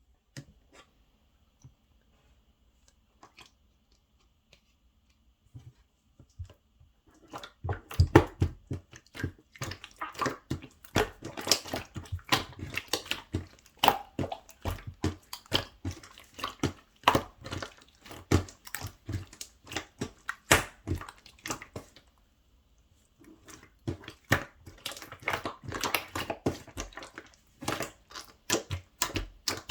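Slime being squeezed and pressed by hand, giving a dense run of wet clicks and small pops. A few nearly quiet seconds come first, and there is a short pause past the middle.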